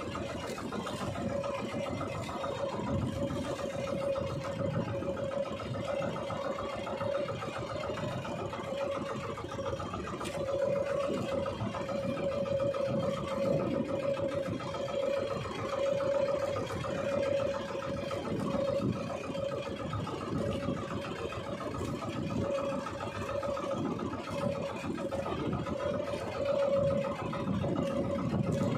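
Small outrigger fishing boat's engine running steadily with an even hum, over low rumbling wind and water noise.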